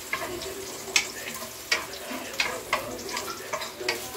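Chopped garlic sizzling in hot oil in a nonstick frying pan, with irregular sharp clicks and scrapes as it is stirred against the pan.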